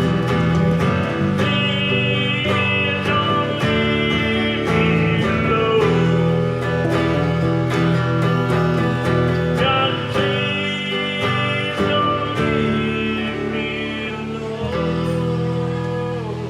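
Live country-style music played on guitar, a song in progress at a steady loudness.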